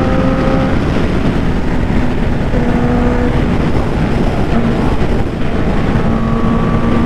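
Honda CBR650R's inline-four engine running steadily at highway cruising speed, its even note partly buried under heavy wind rush on the microphone.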